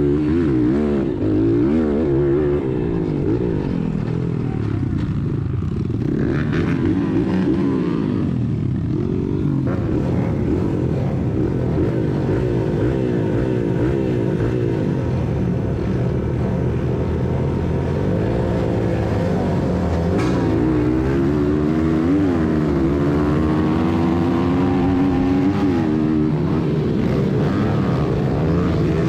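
Honda XR100R's small single-cylinder four-stroke engine revving up and down as the dirt bike is ridden hard through a motocross track, its pitch rising and falling with each acceleration and shift. Other minibikes' engines join in near the end.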